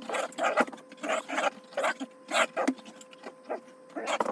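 A dog making short, repeated vocal sounds, about two a second, with a few sharp clicks among them.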